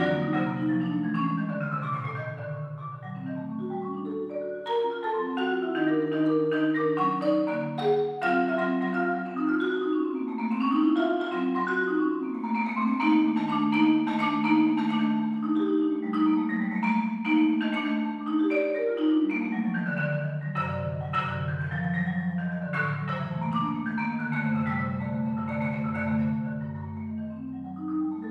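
Solo concert marimba played with mallets: quick struck runs rising and falling over lower notes, with deeper bass notes coming in about twenty seconds in.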